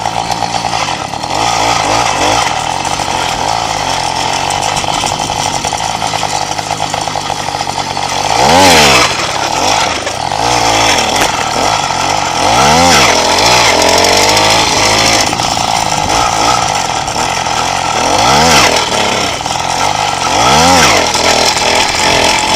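Small motorbike engine running under way, revved hard and dropping back about five times in quick swells, the throttle pulled as the rider climbs and tries for wheelies.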